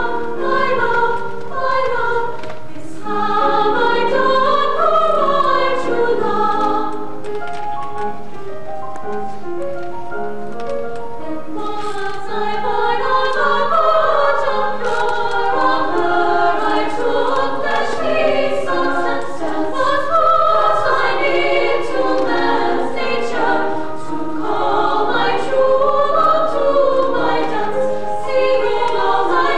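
Choir of young women singing in several-part harmony.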